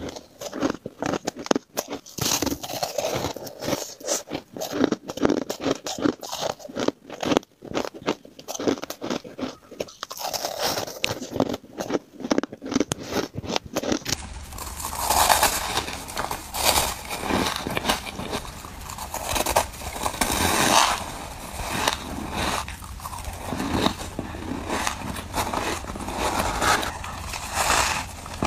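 Crushed ice being bitten and chewed close to a microphone: many sharp crunches in quick succession. About halfway through, the sound changes to a fuller crunching and scraping of packed, snow-like ice over a low steady hum.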